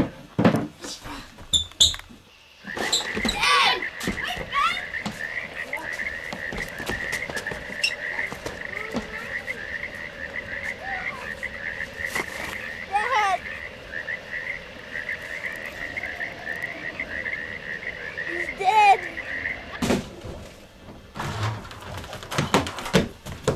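A chorus of frogs calling in a steady, fast trill over the hiss of falling rain, with a few louder sweeping calls. The chorus stops about twenty seconds in, and a few knocks follow.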